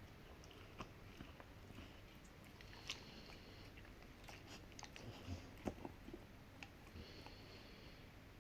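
A Rottweiler gnawing on a hard cow hoof chew: faint, irregular clicks and crunches of teeth on hoof, with a sharper crack about three seconds in and another near six seconds.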